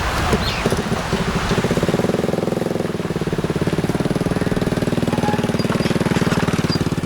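A small engine running steadily close by, with a fast, even firing pulse, starting about a second in.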